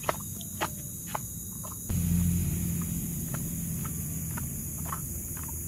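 Crickets and other insects chirring steadily, with light crunching footsteps on dry leaf litter as a person walks away. A low rumble comes in about two seconds in.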